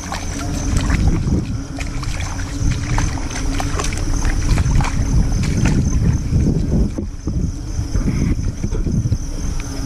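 Footsteps sloshing through shallow water and mud, with a heavy low rumble of wind and handling on the microphone.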